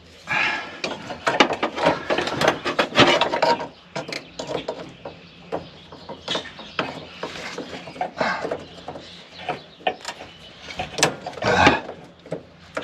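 Irregular metal clicking and clattering of hand tools and parts being worked on a truck's fuel pump, densest in the first few seconds and again near the end.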